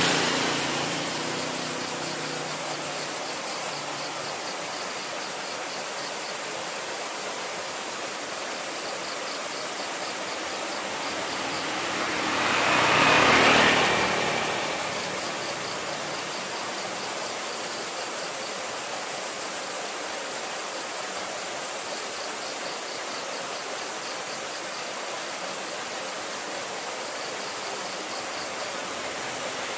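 Steady hiss of distant road traffic, with one vehicle passing by about halfway through, swelling and then fading away.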